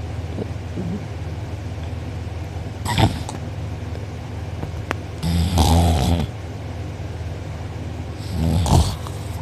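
A sleeping person snoring loudly with the mouth open, the soft palate and uvula vibrating. There are three snores: a short one about three seconds in, a longer one past the middle, and another near the end, all over a steady low hum.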